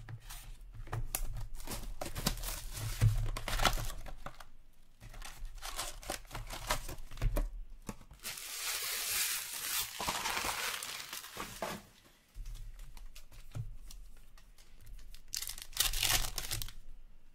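Plastic shrink wrap being slit and torn off a sealed hockey card box, with crackling and crinkling of wrap and packs in several spells. Near the end a foil card pack is torn open.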